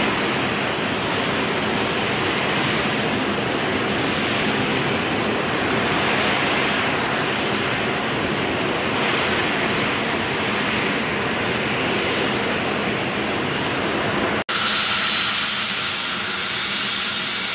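Jet Provost's Viper turbojet running steadily on the ground at a standstill, a loud rush with a high, steady whine over it. About fourteen seconds in the sound breaks off for an instant and resumes with the whine split into several thinner tones.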